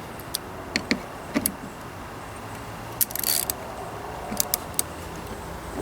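Hand tools and bolts clinking in sharp metallic clicks while bolts on a tractor's front cover are tightened, with a short rattling burst about three seconds in.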